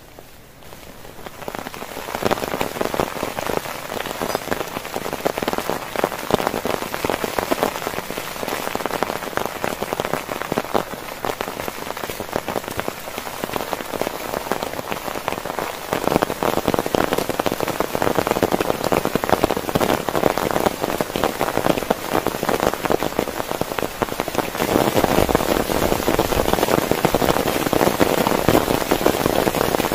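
Heavy rain falling, a dense, continuous mass of drops striking close by. It swells in over the first two seconds and grows heavier about halfway through and again near the end.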